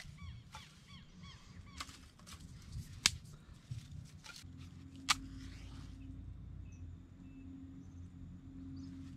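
Dry twigs and grass being handled and laid into a small fire pile, with a few sharp twig cracks, the loudest about three and five seconds in. A bird chirps repeatedly in the first second or so, and a low steady hum comes in about halfway through.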